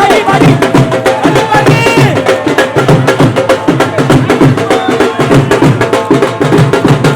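Background music with a fast, steady percussion beat under a melody.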